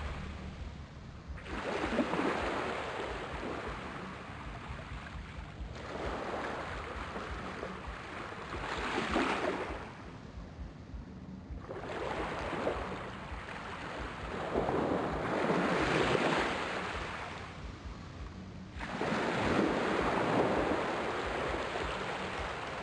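Small waves washing up a sandy beach and draining back, a rush of water that swells and fades every few seconds.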